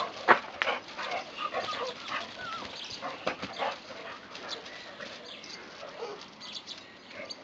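Boxer dogs barking at something hidden in a wall: a few sharp barks in the first second, the loudest just after the start, then quieter short whines and yelps.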